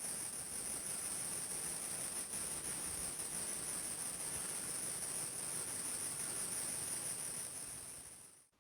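Steady high-pitched chirring of an insect chorus, fading out near the end.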